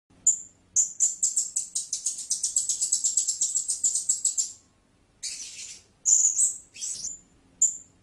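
Blue-crowned hanging parrot calling: very high, thin chirps, one alone and then a rapid run of about seven a second for several seconds. After a short pause comes a brief hissy burst about five seconds in, followed by a few more chirps.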